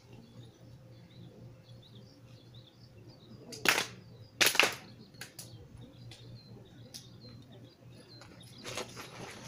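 Two loud handclaps about a second apart, the ritual double clap (kashiwade) of Shinto worship, struck by a small group together so each clap is slightly ragged. Faint bird chirps around them.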